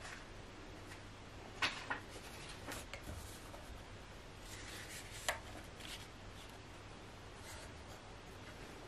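A few light clicks and taps with some soft rubbing, as of small objects being handled, the sharpest about one and a half seconds in and again past the five-second mark.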